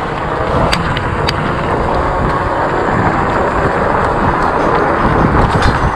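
Wind buffeting the microphone of a moving e-bike, with steady road noise and a few sharp rattles about a second in and again near the end.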